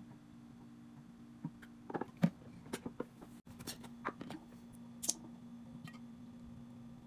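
Scattered light clicks, taps and knocks of items being handled and set down during fridge organizing, the sharpest a little over two seconds in, over a steady low hum.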